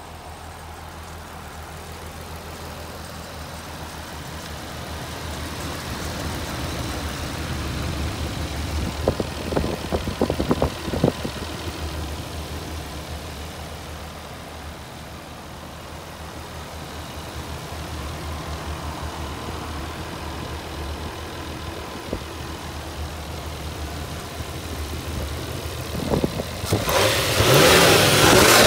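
Nissan RB25DET Neo 2.5-litre turbocharged straight-six running at idle with the hood open, a steady low drone. Near the end it turns much louder, with a rushing hiss.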